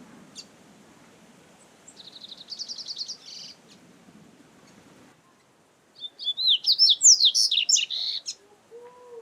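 Double-collared seedeater (coleiro) singing: a short, rapid trill of high notes about two seconds in, then a longer, louder phrase of quick sweeping whistled notes from about six seconds.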